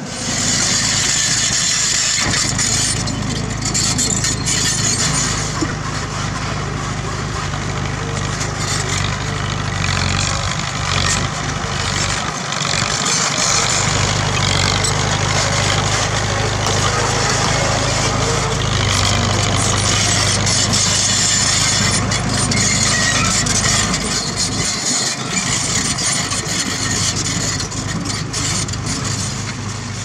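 Komatsu D31P bulldozer's diesel engine running under load as the dozer pushes crushed limestone rubble with its blade, with clattering and scraping from the tracks and rock.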